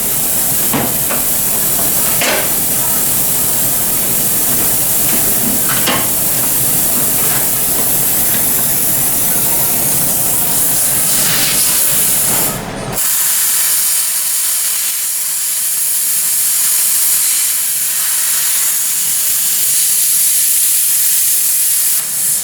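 Plasma cutter cutting through car-body sheet metal: a loud, steady hiss of the arc and compressed air, with a few short clicks. It breaks off briefly a little past halfway, then starts again.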